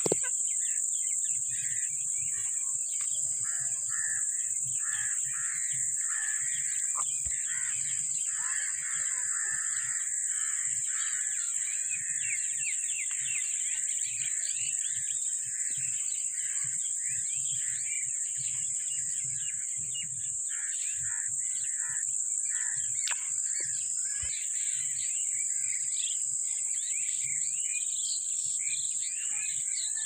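Rose-ringed parakeets chirping and chattering: a dense, continuous run of short, overlapping high calls. Underneath is a steady high-pitched hiss.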